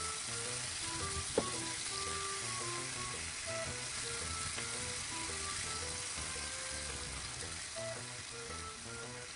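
Sliced pork and bell peppers sizzling steadily in a small rectangular frying pan over a gas flame, with a single sharp click about a second and a half in.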